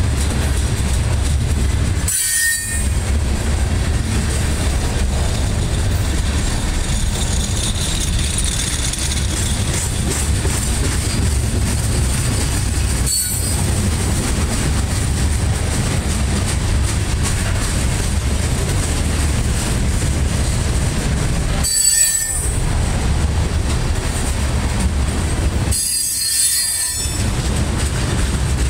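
Hopper cars of a CSX Herzog rock train rolling past at a steady pace: a continuous low rumble of steel wheels on rail. A faint high wheel squeal rises and fades about eight to ten seconds in.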